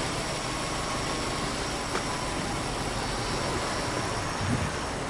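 Subaru Impreza WRX STI's turbocharged flat-four boxer engine idling steadily, heard through the open engine bay as an even rushing hum.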